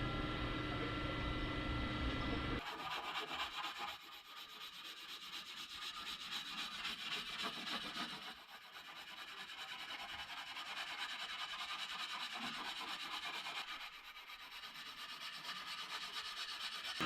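Body filler on a car's quarter panel being block-sanded by hand, a steady scratchy rasp in three long runs with short dips between them. Before the sanding, a steady machine hum runs for about two and a half seconds and then cuts off abruptly.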